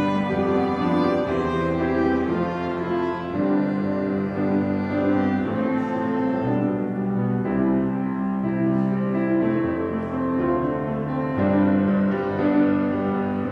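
Piano quartet of grand piano, two violins and cello playing a slow piece, the strings holding long notes over the piano.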